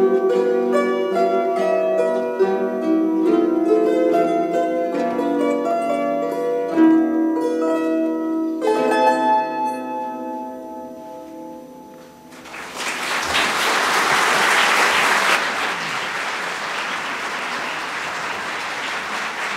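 Ensemble of plucked lyres and kanteles playing the last bars of a piece, its final chord ringing and dying away. About thirteen seconds in, audience applause breaks out and continues.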